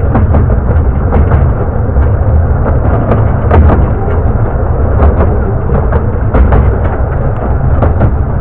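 15-inch gauge miniature railway carriage running along the track: a steady low rumble with frequent irregular clicks and knocks from the wheels on the rails, and wind buffeting the microphone.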